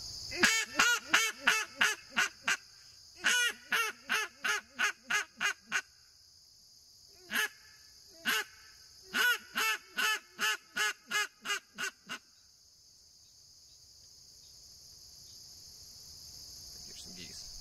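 Gillow Outdoors Weekend Warrior duck call blown in a greeting call: three quick runs of about eight quacks each, each run fading in loudness, with two single quacks between the second and third runs. Insects buzz steadily underneath.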